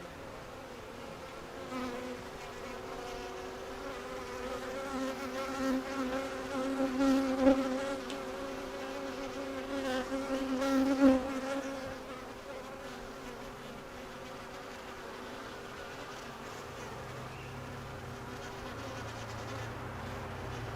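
Honey bees buzzing in a steady drone, swelling and wavering for several seconds in the middle as bees fly close, then settling back to a steady hum.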